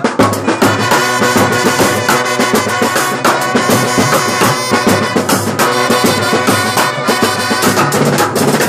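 A brass band set playing: trumpets carry a melody of held notes over steady strokes of bass drums, side drums and cymbals.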